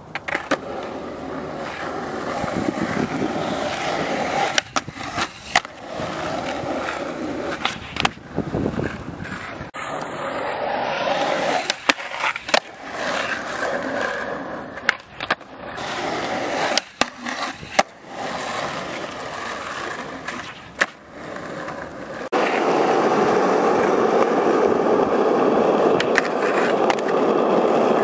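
Skateboard wheels rolling over rough asphalt, with sharp clacks of the board hitting the ground at intervals as tricks are popped and landed.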